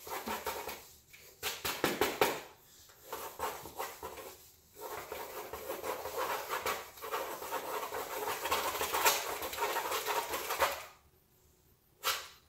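Pencils scribbling and shading on paper on clipboards: a scratchy rubbing made of many quick strokes, with a few short pauses. It stops about eleven seconds in, and one short tap follows.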